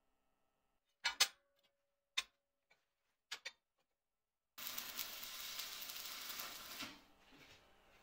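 Steel parts knocking sharply on a steel welding table, a few separate clanks in the first half, then about two seconds of scraping as a steel plate is worked across the table.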